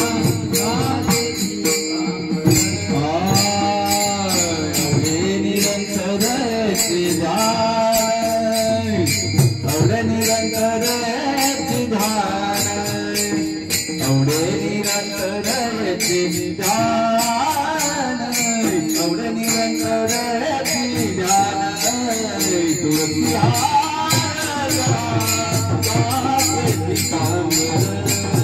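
Varkari bhajan music: a voice sings a long, gliding melody without clear words, over a fast, steady jingle of small hand cymbals.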